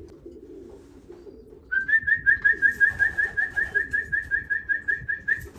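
Electronic pigeon-race timing clock beeping rapidly at one fixed pitch, about six beeps a second for nearly four seconds, then stopping: returning racing pigeons being registered on arrival at the loft. Pigeons coo low underneath.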